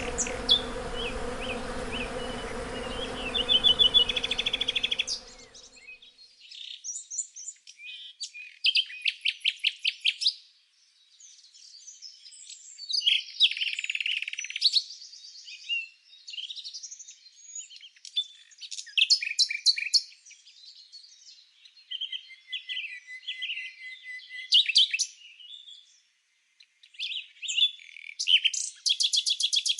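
A buzzing insect hums steadily for about five seconds and then cuts off suddenly. After it, small songbirds chirp and trill in short, scattered phrases, some of them rapid strings of notes.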